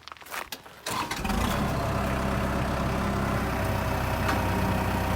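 A diesel-like engine comes in suddenly about a second in and then runs steadily at idle. Before it, only faint scattered handling sounds.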